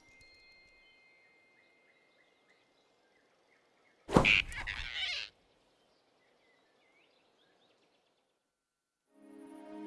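Faint cartoon forest ambience with small bird chirps. About four seconds in comes a sudden loud hit with about a second of rushing whoosh, which cuts off abruptly. After a few seconds of silence, soft music begins near the end.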